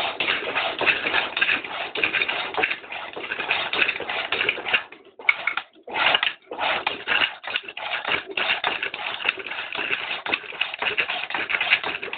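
Turning tool cutting into the face of a wooden plate blank spinning on a homemade lathe driven without an electric motor: a dense, rattly scraping, breaking off briefly about five seconds in.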